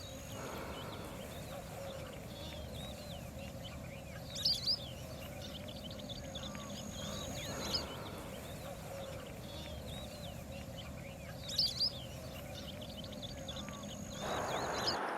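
Birds chirping and twittering over a steady background of outdoor noise, with a loud, short double call heard twice, about seven seconds apart. The background changes shortly before the end.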